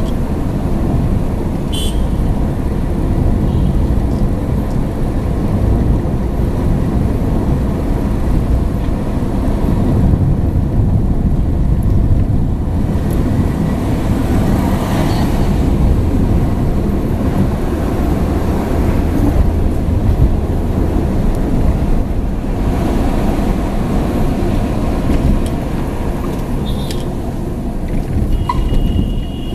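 Steady engine and tyre rumble of a moving car heard from inside the cabin, with traffic noise around it. A brief horn toot sounds near the end.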